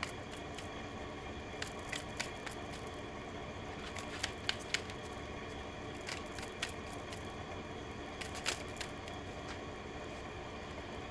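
Tarot cards being handled: scattered light clicks and snaps of card stock, a dozen or so, over a steady room hum.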